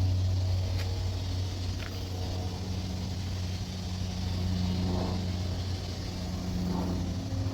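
Steady low mechanical hum, like a motor running, with two faint clicks about one and two seconds in.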